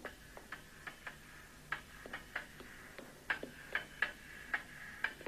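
Fencing blades clashing in a bout: about fifteen light metallic clinks, each with a short ring. They come irregularly and grow louder and more frequent toward the end.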